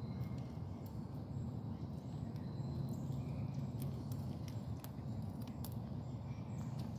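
Power wheelchair driving over asphalt strewn with dry leaves: a steady low hum, with scattered light ticks and crackles.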